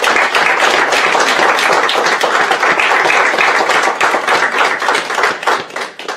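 Audience applauding: many people's hand-clapping, steady and loud, dying away near the end.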